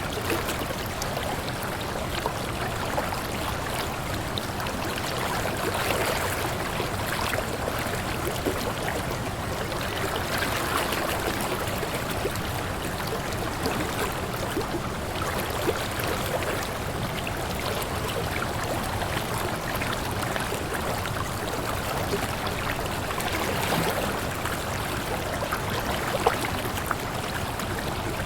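Waterfall: a steady rush of falling, splashing water that swells and eases a little every few seconds, with small splashes on top.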